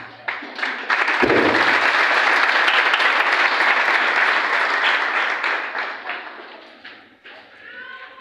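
Audience applauding: the clapping starts about a second in with a low thump, holds steady for several seconds, then dies away near the end.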